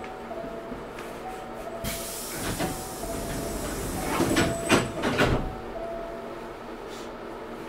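Inside a Hankyu 6300 series train stopped at a station: a soft two-note falling chime repeats about once a second while air hisses out, and the sliding doors close with a few loud thuds about four to five seconds in.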